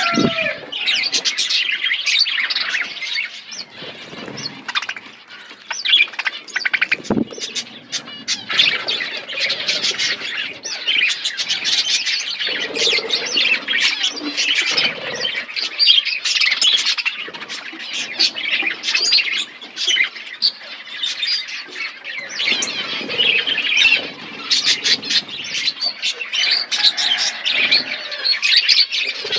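A flock of budgerigars chattering continuously, with many overlapping chirps and squawks.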